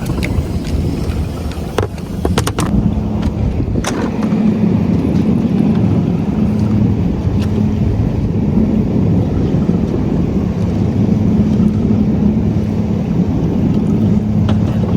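Boat engine running steadily under way, a low rumble with a steady hum that comes in about three seconds in. A few sharp clicks sound near the start.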